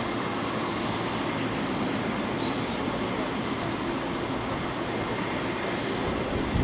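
Boeing 787-9 Dreamliner jet engines running at takeoff power, a steady engine noise heard from the airfield perimeter, with a faint thin high tone over it.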